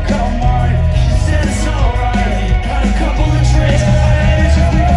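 Live rock music played loud through festival PA speakers, with heavy bass and a sung vocal, heard from within the crowd.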